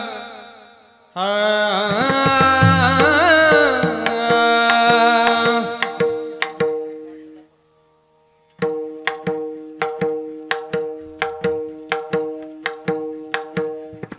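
Mridang, a two-headed barrel drum, played in a Varkari kirtan. Melodic singing with deep drum strokes comes first. After a brief pause about halfway through, the mridang settles into a steady beat of about two strokes a second over held steady notes.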